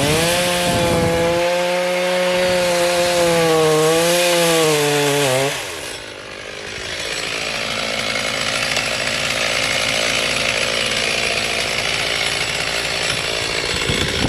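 Two-stroke chainsaw, a Husqvarna 435, running at high revs with its pitch wavering slightly, then dropping away about five seconds in. From about seven seconds it runs with a rougher, noisier sound as it cuts into the tree trunk during felling.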